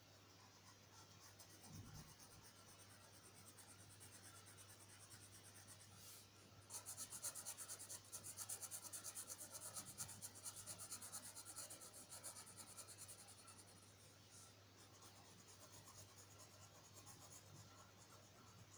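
Felt-tip marker rubbing and scratching on paper as a thick curved stroke is drawn and filled in with quick back-and-forth strokes. It is faint, and most intense from about 7 to 13 seconds in.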